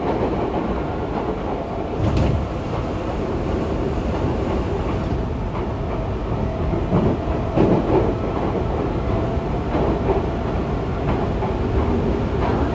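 Yokohama Blue Line 3000A-series subway train running at speed, heard from inside the car: a steady rumble of wheels on rail with a faint steady tone. Brief louder bumps about two seconds in and again around seven to eight seconds in.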